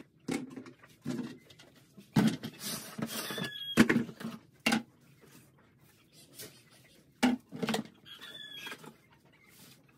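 A plastic feed drum being opened and dry feed scooped out: irregular knocks and clacks of the plastic lid and drum, a few seconds of rustling as the feed is handled, and two short squeaks.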